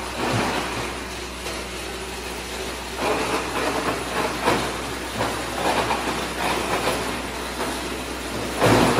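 Plastic pipe crusher running with a steady low hum while it chews PPR pipe fed into its chute, with irregular crunching and cracking bursts as the pipe breaks up. The loudest crunch comes near the end.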